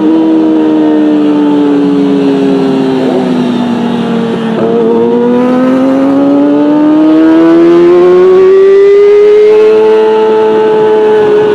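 Kawasaki Ninja ZX-25R's 249 cc inline-four running at high revs through a catless Beet Nassert R Evolution exhaust. The pitch eases down for the first few seconds, then climbs steadily from about halfway through and levels off near the end.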